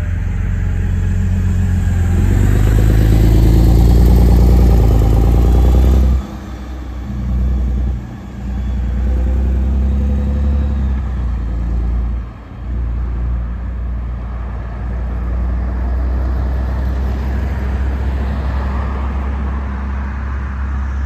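LiAZ-5292.60 city bus's diesel engine accelerating as the bus pulls away from the stop, rising in pitch and loudness for about six seconds, then falling away suddenly. Steady road traffic follows.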